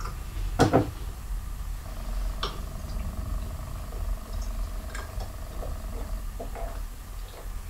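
Thick egg liqueur poured from a stainless-steel Thermomix mixing bowl through a plastic funnel into a glass bottle, gurgling low and steadily, with a sharp knock about half a second in and a few light ticks.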